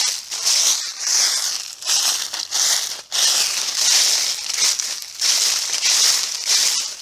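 Footsteps crunching through dry leaves at a steady walking pace, about two crunchy steps a second.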